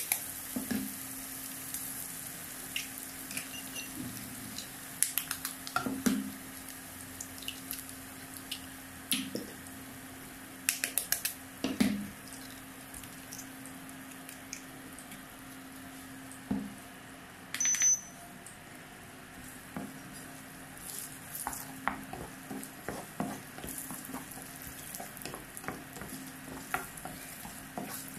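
Onions and chillies sizzling in oil in a nonstick kadai, a steady hiss, broken by a few sharp knocks as eggs are cracked into the pan. In the last few seconds a spatula taps and scrapes repeatedly as the eggs are stirred and scrambled into egg bhurji.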